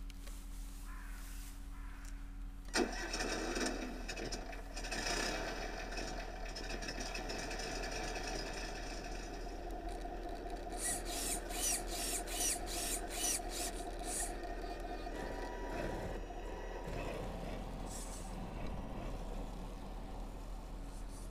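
A scale RC crawler's sound module playing a truck engine starting about three seconds in and then running, mixed with the whine of the model's small electric motors as it works its way out of the snow.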